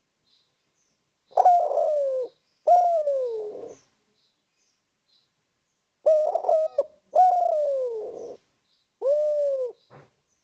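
Spotted dove cooing: two falling coos, a pause, then three more, each sliding down in pitch.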